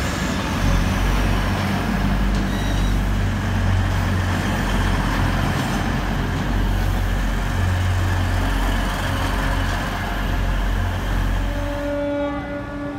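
Hull Trains passenger train pulling out and passing close by: a loud, steady low drone with a rushing rumble from the moving train. About twelve seconds in, the sound drops to a quieter station hum with a few held tones.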